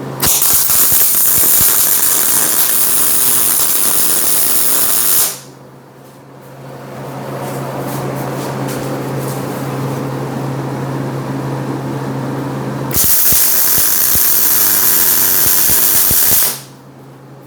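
Electric arc welding on steel: two tack welds, a crackling, sizzling arc for about five seconds, then after a pause with a steady low hum, a second arc of about three and a half seconds near the end. The tacks fix a switchable lifting magnet into a steel welding tabletop.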